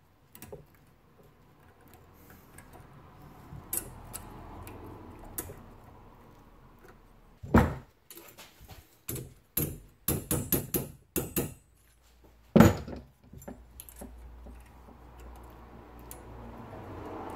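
Metal clicks and clinks as thin stainless steel brake pad clips are worked into a rusty caliper bracket held in a bench vise. A louder knock comes a little before halfway, then a quick run of clicks, and another knock about two-thirds through.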